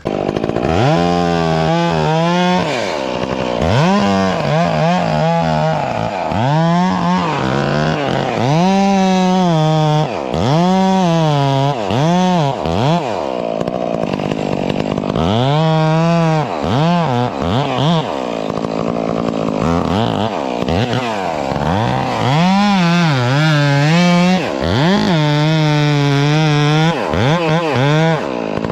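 Stihl MS 661 two-stroke chainsaw cutting into a cedar trunk, the engine revving up and dropping back again and again as the chain loads and clears in the cut.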